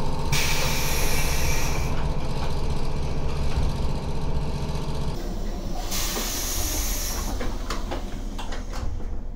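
Train's pneumatic sliding doors working: a sharp hiss of air from the door engines, twice, over the steady rumble of the idling train, with a few sharp knocks near the end as the door leaves move and shut.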